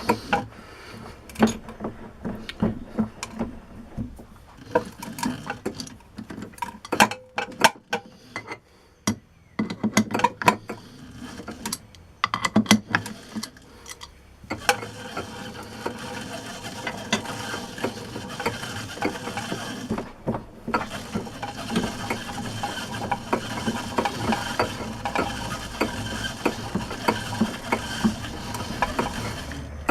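Scattered metallic clicks and knocks, then a century-old metal lathe running from about halfway, a steady mechanical clatter that drops out briefly a few seconds later.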